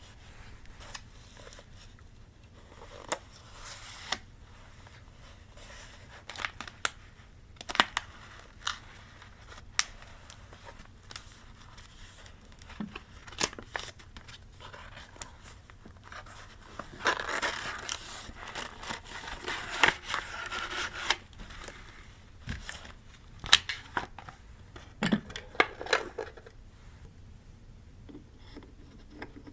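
Paper-craft sounds: scissors cutting paper and paper being handled, with scattered sharp clicks and taps. A longer stretch of continuous cutting and rustling comes about two-thirds of the way in.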